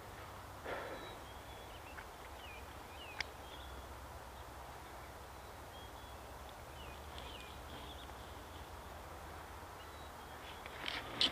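Quiet outdoor ambience with faint bird chirps here and there over a low wind rumble, and a few faint clicks. Near the end comes a short cluster of louder sharp clicks and crackles.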